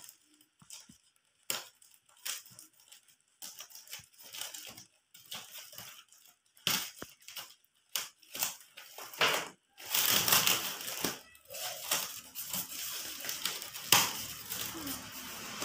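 A parcel's wrapping being crinkled and torn open by hand: scattered crackles and snaps, turning into denser, louder crackling about two-thirds of the way in.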